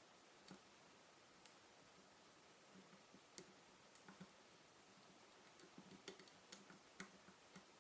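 Faint, scattered small clicks of a lock pick working the pins of a Mul-T-Lock MT5 pin-in-pin lock under a tension wrench, coming more often in the second half.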